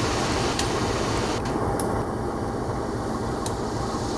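Steady low diesel hum of a passenger train standing at the platform, with a few faint sharp ticks.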